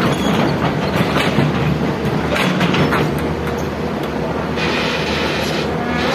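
Heavy machinery running loudly, with a steady low rumble and irregular metallic clanking and rattling, and a hiss lasting about a second near the end.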